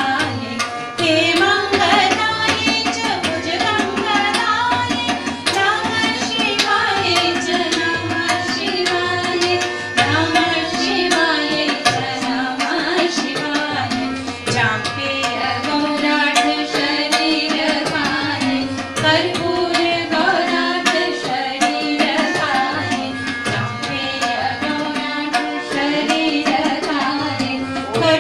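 Indian classical-style devotional song: a singing voice over tabla drumming and melodic accompaniment.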